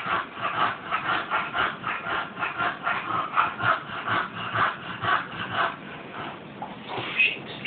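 A bulldog panting hard in a quick, even rhythm of about four breaths a second, easing off near the end.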